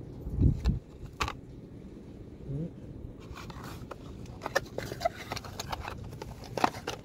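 Handling noise of a new wheel grease seal and its cardboard box: scattered small clicks and scrapes, with a low thump near the start.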